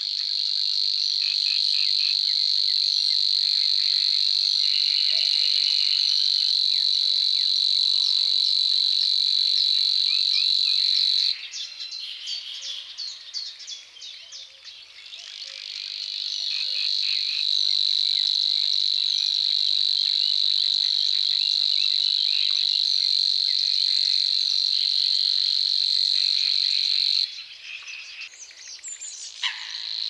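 Savi's warbler reeling: a long, fast, even buzzing trill on one steady high pitch. It breaks off about eleven seconds in, starts again a few seconds later and runs for about ten seconds more, stopping near the end. Other small birds chirp in the gaps.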